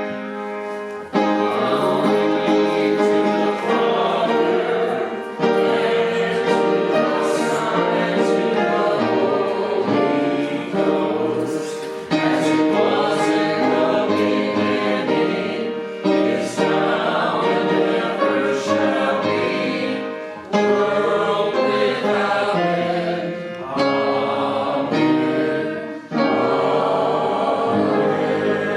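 A group of voices singing a hymn together with keyboard accompaniment, in sung phrases with short breaks between them.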